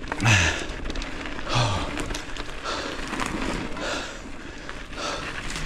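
A mountain biker breathing hard while pedalling, one breath about every second, the first two with a short falling grunt. Under it runs a steady rumble of tyres on the dirt trail.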